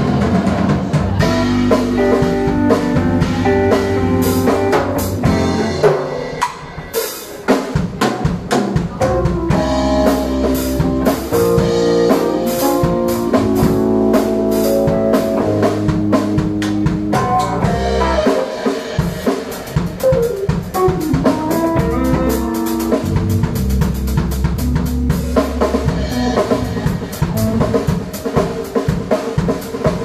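Live rock band playing: a full drum kit with bass drum, snare and rimshots, backed by sustained bass and electric guitar notes, with a falling slide about twenty seconds in.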